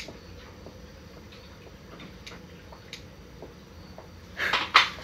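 Light clicks and taps of bowls, plates and utensils being handled on a table, with a louder rustle and clatter about four and a half seconds in.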